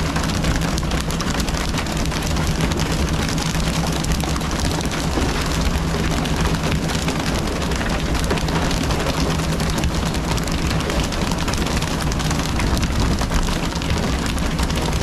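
Fishing boat's engine running steadily, under a continuous hiss of spraying and splashing sea water as skipjack tuna are pole-caught over the side.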